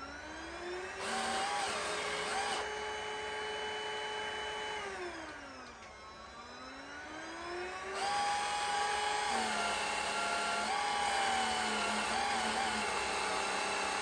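Prettycare W200 cordless stick vacuum motor running with a steady whine. About five seconds in it winds down, then spins back up, and around eight seconds in it steps up louder and runs steady.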